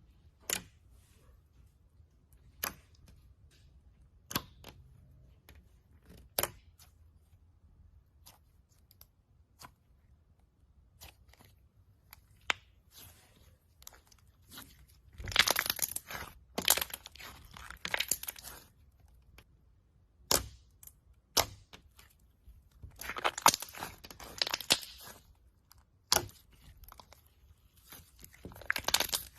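Clear and pink slime being played with, popping and crackling: single sharp clicks every couple of seconds at first, then denser bursts of crackles and pops about halfway through and again near the end.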